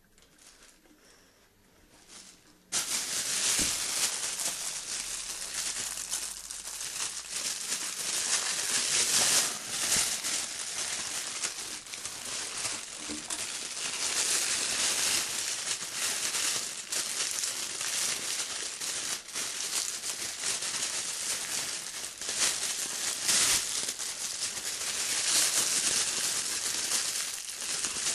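Plastic packaging crinkling and rustling as it is handled, starting suddenly about three seconds in.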